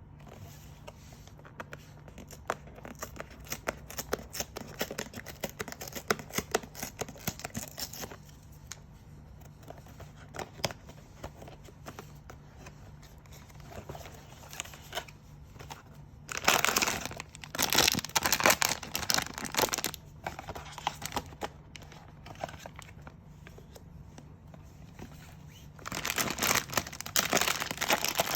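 Packaging from a blind box being handled, crinkling and tearing as it is opened, with a dense patter of crackles and two louder spells of crinkling, one midway and one near the end.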